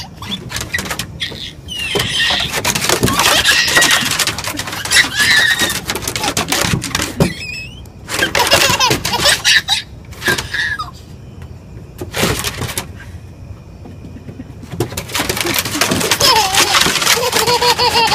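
A toddler squealing and giggling in high, gliding squeals.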